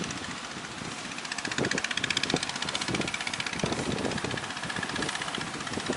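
Motorised fishing boat's engine running with a fast, even pulse, growing louder about a second and a half in and easing off near the end, over wind and surf noise.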